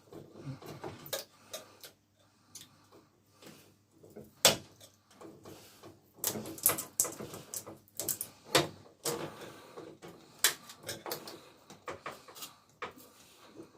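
Irregular clicks, taps and knocks of hands working on a flat-screen TV's disassembled parts, with one sharper knock about four seconds in and a busier run of clicks in the second half.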